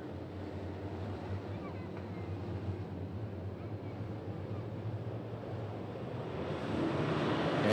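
A bunched field of dirt-track Sportsman late model race cars running at slow pace speed, a low steady engine drone heard from a distance, growing louder in the last second or so as the field closes on the start.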